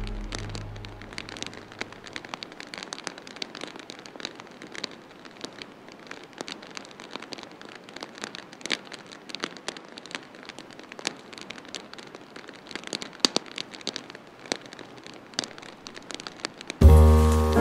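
Rain falling: a steady hiss scattered with many sharp drop ticks. Music fades out over the first second or two and cuts back in abruptly near the end.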